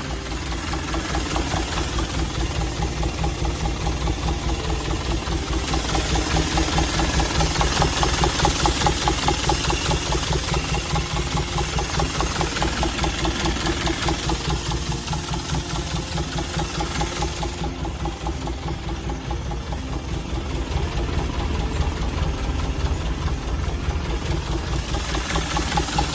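Isuzu Elf truck's engine idling steadily with an even, pulsing beat.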